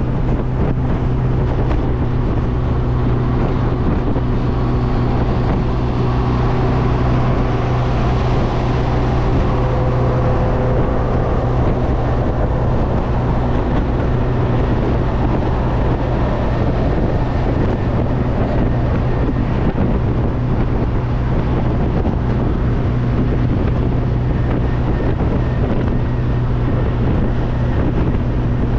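Steady drone of a car engine on the move, with wind rushing over the microphone.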